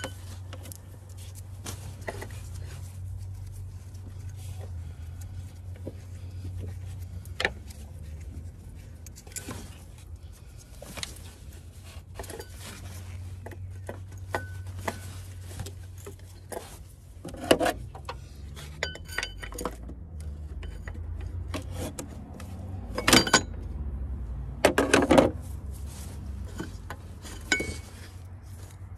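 Metal hand tools clinking and knocking against engine parts, in scattered sharp clicks with a few louder clusters of knocks after the middle. A steady low hum runs underneath.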